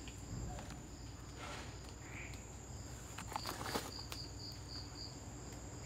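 Quiet night insect ambience: a steady high-pitched buzz, joined a little past three seconds in by a cricket-like chirp repeating about six times at roughly three a second. A few faint rustles, from footsteps or handling.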